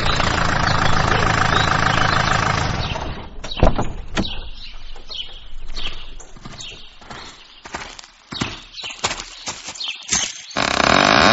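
Sound-effect sequence: a steady rumbling noise fades out about three seconds in, followed by scattered knocks and clicks, and near the end a loud rising, creaking sound begins.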